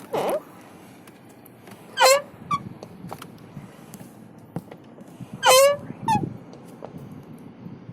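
A car door squeaking twice as it is swung open and shut: short, high squeals of the door check strap rubbing in its dry plastic guide, the creak the owner calls unpleasant. There is a dull knock of the door at the start.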